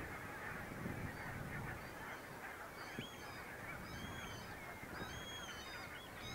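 A large flock of geese calling together, a dense chatter of many overlapping honks, with single higher calls standing out from about halfway.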